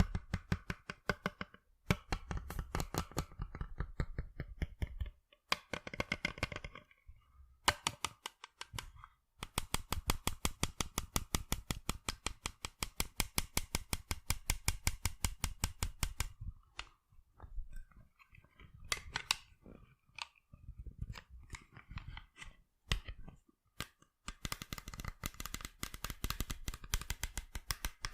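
Fingers tapping rapidly on sunglasses: fast runs of crisp taps, several a second, broken by short pauses.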